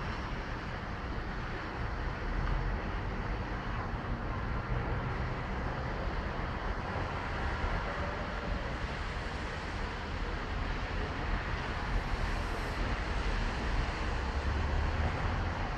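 Steady, distant city street traffic: cars running on the road below, heard as an even low rumble that swells briefly near the end.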